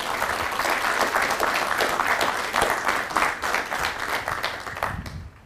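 A large audience in the stands applauding, a dense patter of many hands clapping that fades out near the end.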